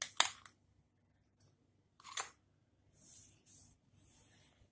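Steel spoon knocking and scraping against glass bowls while gram flour is spooned in: a few light clinks, the sharpest just after the start and another about two seconds in, then soft brushing sounds.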